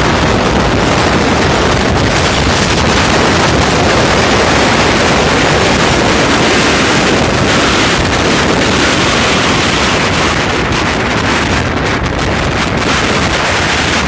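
Loud, steady wind buffeting the phone's microphone, mixed with the wash of surf breaking in foam on a pebble shore.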